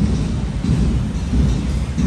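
Low rumble of wind buffeting a handheld camera's microphone, swelling in soft thuds about every 0.7 s in step with walking footsteps.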